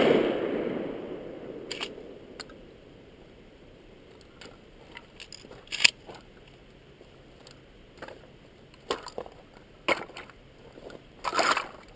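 The boom of a 12-gauge Remington 870 pump shotgun blast dies away over the first second or so. Scattered short clicks and knocks follow, the sharpest about six seconds in.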